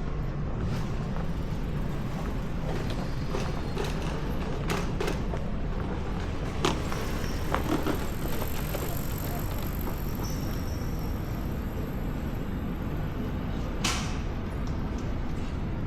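Street ambience: a steady low rumble of background noise with scattered light clicks and knocks, the sharpest about seven seconds in and near the end.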